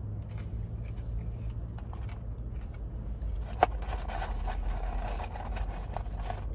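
Low steady hum underneath. A sharp click comes a little past halfway, then a couple of seconds of rustling and small clicks as fries and their paper packaging are handled.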